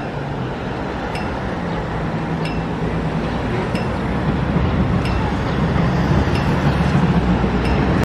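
Busy city street traffic noise with a low vehicle hum that grows louder toward the end, and a short clinking tick repeating steadily about every second and a quarter.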